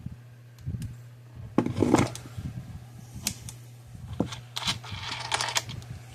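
Patriot PMX120 electric fence energizer clicking as it fires its pulses, sharp ticks about once a second over a steady low hum, showing the repaired unit is working. Some rustling and handling noise near the end.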